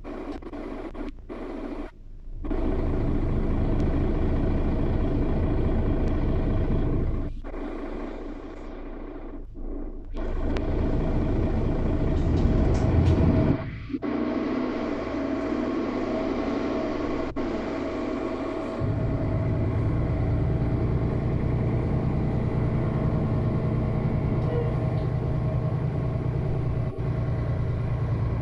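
Engine and road noise heard inside the cabin of a moving city bus. The noise dips a few times and comes back, then settles into a deeper, steadier rumble about two-thirds of the way through.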